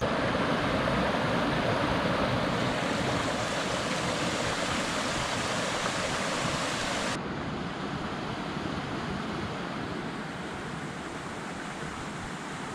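Steady rushing of water in a small rocky stream, an even hiss with no distinct splashes. About seven seconds in it cuts abruptly to a duller, slightly quieter rush.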